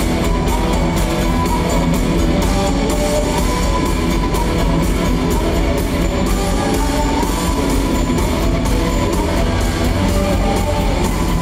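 Live rock band playing loud and steady: electric guitar, bass guitar and drum kit, with a flute line over them.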